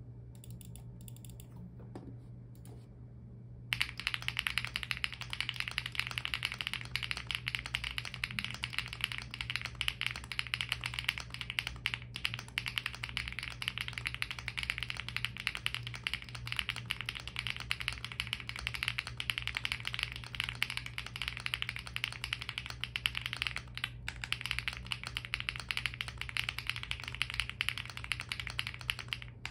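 Fast continuous typing on an Owlab Acrylic Spring 65% mechanical keyboard with Sillyworks Hyacinth V2U switches and Aifei 8008 doubleshot ABS Cherry-profile keycaps, a dense stream of keystroke clicks that begins about four seconds in, with a couple of brief pauses.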